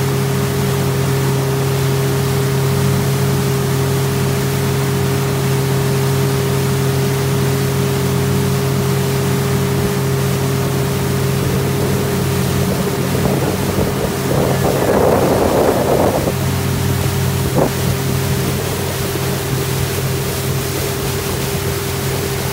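A motorboat's engine runs at a steady hum while water rushes past the hull. About two-thirds of the way through there is a brief louder rush, then a single click.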